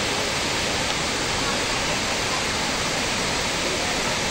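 Waterfall rushing, a steady, even roar of falling water with no breaks.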